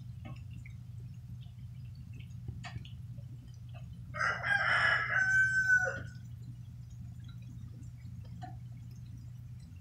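A rooster crows once, a call of about two seconds near the middle, over a steady low hum.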